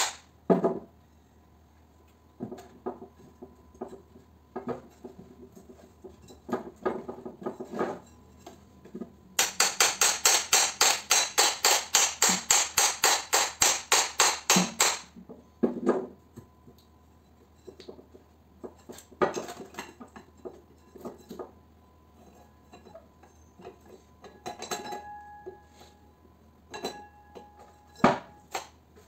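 A hammer striking the steel shafts of stacked electric motor armatures: a fast run of sharp metallic taps, about five a second, for some five seconds midway, with scattered single knocks and clinks of the metal parts before and after.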